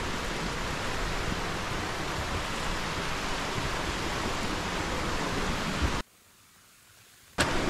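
Mountain stream rushing steadily. About six seconds in it cuts off abruptly into a second and a half of near silence, then comes back.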